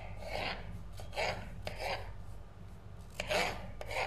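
Kitchen knife slicing through green bell peppers on a cutting board: about five short rasping strokes, unevenly spaced, over a steady low hum.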